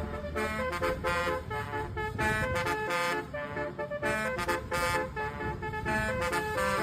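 Basuri multi-tone 'telolet' bus horn playing a quick tune of short notes that change pitch every fraction of a second, over a low rumble.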